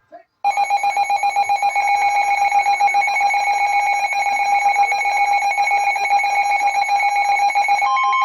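Emergency alert attention tone: a loud, steady electronic tone that starts about half a second in, with a second, higher tone joining near the end, signalling that a new weather warning follows.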